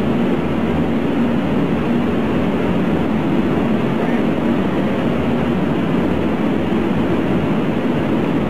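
A loud, steady drone with a rushing noise, holding even without a break, like an engine running.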